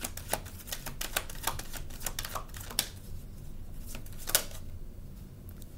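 A deck of oracle cards being shuffled and handled by hand: a quick run of light card clicks and snaps for about three seconds, then a single sharper snap a little past four seconds in.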